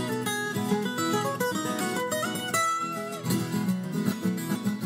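Background music led by acoustic guitar, a quick run of short plucked notes.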